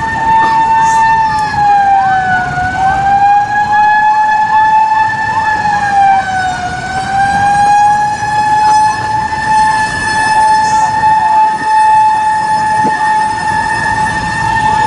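A loud, continuous siren-like whine holding one high pitch with an overtone, sagging slightly in pitch and recovering twice, about two and a half and six and a half seconds in.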